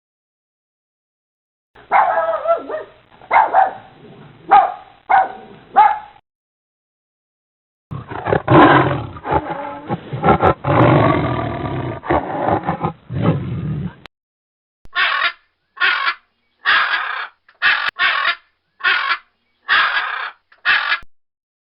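Three separate animal recordings one after another. First a few short calls, then one long loud call lasting about six seconds, then about eight short calls evenly spaced a little under a second apart.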